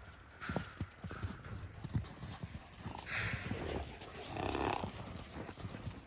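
Hooves stepping: irregular clops on the ground, with two short rushing noises about three and four and a half seconds in.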